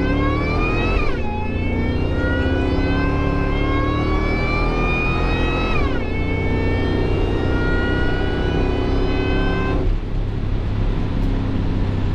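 Supercharged 5.4 L V8 of a 2001 Ford SVT Lightning pickup accelerating hard through the gears. The engine pitch climbs steadily, drops sharply at upshifts about a second in and about six seconds in, climbs again, then gives way to a steady low rumble and road noise near ten seconds in.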